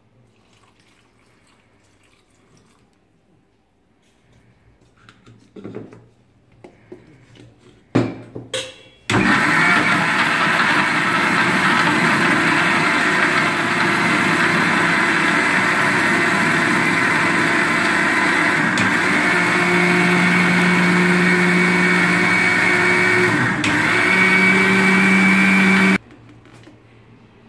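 Electric mixer grinder, after a few light knocks, starting up and running loudly and steadily for about seventeen seconds, grinding dried chillies and garlic with water into a paste, its tone shifting a little near the end before it cuts off suddenly.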